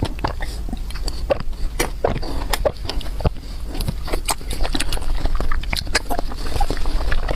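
Close-miked eating: wet chewing and mouth smacks, with many quick irregular clicks and crunches throughout.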